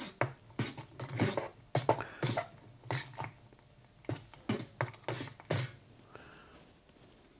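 A metal spoon scraping and knocking against the inside of a metal camping pot while stirring custard into simmering fruit. The strokes come as a quick, uneven run of scrapes and clinks and stop about six seconds in.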